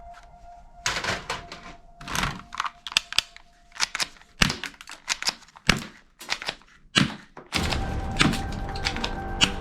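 Sharp plastic clicks and snaps of toy guns being worked and fired, coming in irregular clusters. A steady hum with level tones sets in near the end.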